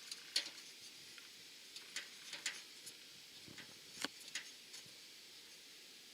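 Gas fireplace running after its pilot jet was cleaned, with a faint steady hiss and scattered light ticks and clicks, several a second at irregular intervals.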